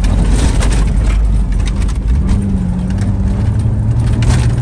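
Pickup truck driving over a rough desert dirt road, heard from inside the cab: a heavy rumble with rattles and knocks from the bumps. The engine note steps lower about three and a half seconds in.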